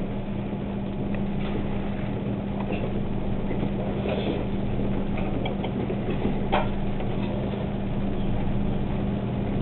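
Steady low hum over background noise, with a few faint clicks, the clearest about six and a half seconds in.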